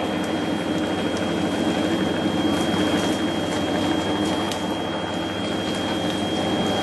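A large pack of road bikes rolling past at a mass start: a steady whir of freewheels, chains and tyres, with scattered light clicks.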